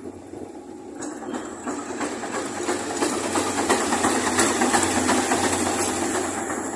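Thai railway GEK-class (GE UM12C) diesel-electric locomotive passing close by on its own, its diesel engine running with a low hum over rattling running gear and wheels on the rails. It grows louder to a peak about four to five seconds in, then eases off as it goes by.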